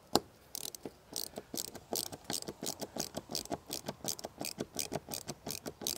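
A hand ratchet driving a screw, the pawl clicking rapidly and fairly evenly, about five or six clicks a second. A single sharp knock just after the start is the loudest sound.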